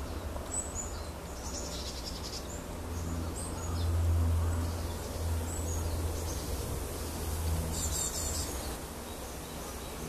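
Small birds calling with short, high chirps scattered through, and a quick run of chirps about eight seconds in. Under them is a low rumble that swells around four seconds in.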